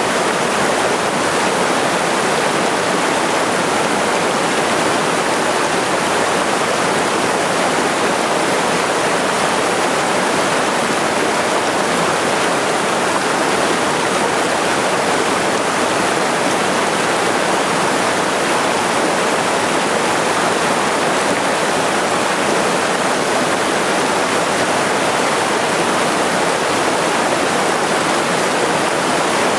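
Small waterfall cascading over mossy boulders into a pool on a mountain headwater stream: a steady, unbroken rush of falling water.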